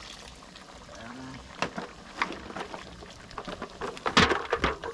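Scattered sharp clinks and knocks of metal utensils against a cooking pot, a few spread out at first, then a quick cluster of louder knocks near the end.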